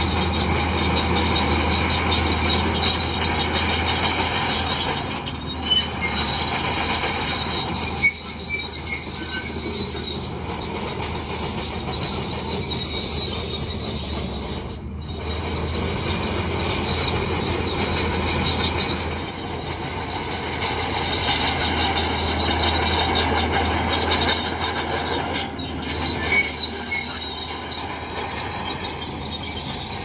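Crawler bulldozer working: a steady engine drone under high squealing from its steel tracks, with a few sharp clanks.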